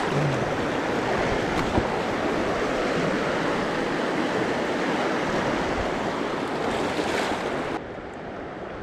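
Fast river water rushing and churning through a small rapid around a pontoon boat's float, close by. Near the end it drops suddenly to a much quieter flow.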